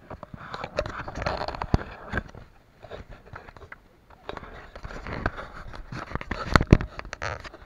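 Handling noise from a small action camera being gripped and turned by hand: irregular knocks, clicks and rubbing of fingers against the casing and microphone. The loudest knocks come near the end.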